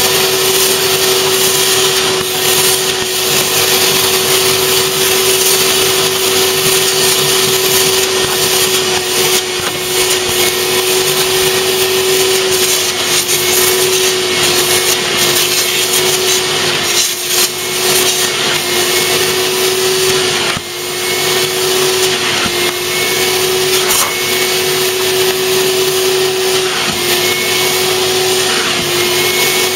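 Vacuum cleaner running steadily as its clear-headed upholstery nozzle is drawn across a fabric bus seat: a constant rushing of air over a steady motor whine. The sound drops briefly twice near the middle.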